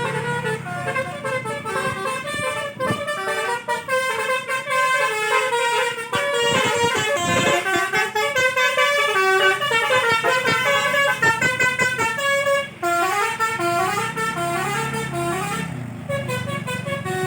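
Telolet basuri multi-tone bus horn playing a fast tune of short stepped notes, with a brief break a little before the end and then several quick rising runs of notes. A low engine-like hum runs underneath.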